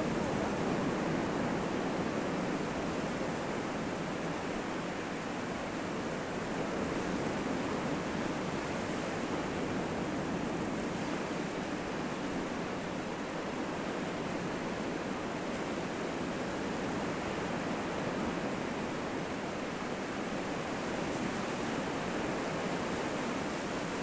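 Sea surf washing onto a sandy beach, a steady rushing noise with no distinct breaks.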